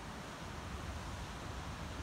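Wind buffeting the microphone: a steady rushing hiss over an uneven low rumble.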